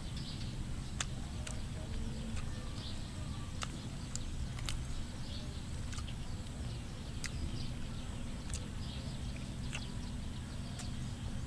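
Scattered sharp clicks and smacks of someone eating cooked fish with her fingers and mouth, coming irregularly about once a second over a steady low rumble.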